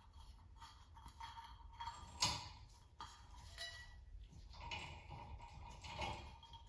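Faint metal clinks and handling noise from a chandelier's chain and metal canopy as they are handled, with a sharper clink about two seconds in.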